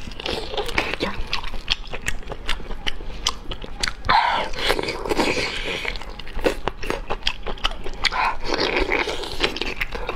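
Close-miked eating of braised octopus: wet biting, chewing and mouth clicks and smacks throughout, with two longer sucking stretches as the meat is pulled off the tentacle with the lips, about four seconds in and again about eight seconds in.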